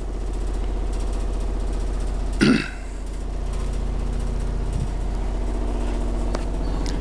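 A 15 Hz subsonic test tone played through eight Dayton Audio Ultimax 18-inch sealed subwoofers, heard as a steady, loud buzzing drone from the straining drivers and the house fittings vibrating with it. It swells over the first second, with a brief louder burst about two and a half seconds in.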